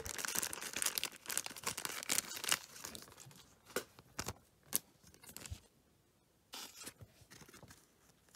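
Clear soft plastic card sleeve crinkling and rustling as a trading card is slid into it. The crinkling is densest for the first three seconds, then breaks into scattered crackles with a short pause before a few more near the end.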